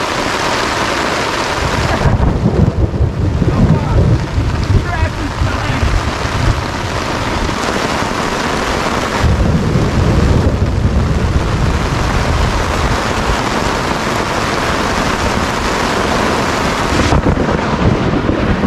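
Heavy rain pouring down in a severe thunderstorm, with deep thunder rumbling in about two seconds in and again around nine seconds in.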